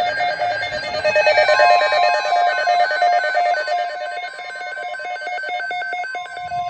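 NOAA weather radios sounding their alert alarms: rapid repeating electronic beeps in two pitches. A steady warning tone just above 1 kHz, the NOAA 1050 Hz alert tone, joins about a second and a half in. Together they signal a weather alert, here a Severe Thunderstorm Watch.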